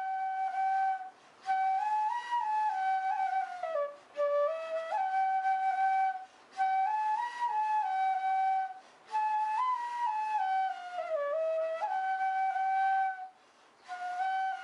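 Background music: a single melody line played in phrases of a few seconds, stepping up and down in pitch, with short breaks between the phrases.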